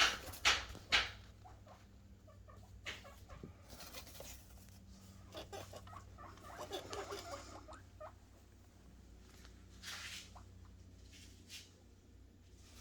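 Guinea pig boars making short squeaks and scuffling noises, with three sharp knocks in the first second.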